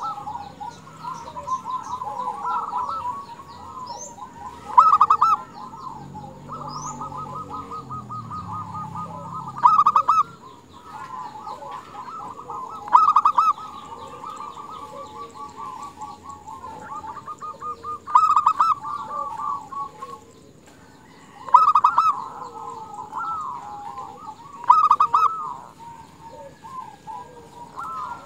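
Female zebra dove (perkutut) calling: bouts of quick, rolling coos repeated every few seconds, with a short pause about two-thirds of the way through. This is a hen's call, used to lure and excite males into calling.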